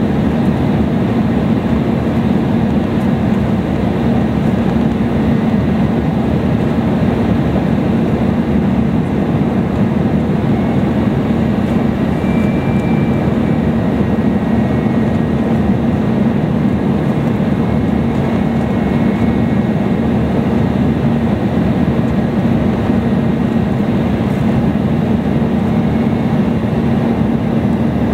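Steady cabin noise inside an Embraer E175 airliner in flight: the even rush of air and engine noise from its two CF34 turbofans, with a constant low drone underneath.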